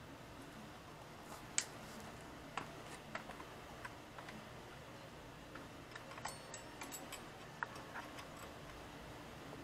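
Scattered light metal clicks and clinks from a spring-hook puller working at an adjustable kickstand's spring and mount as the stand is fitted and swung up. The sharpest click comes about one and a half seconds in.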